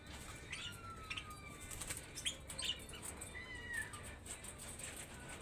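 Red-rumped parrots giving short whistles and chirps, one long slightly falling whistle among them, over scattered small clicks and rustling.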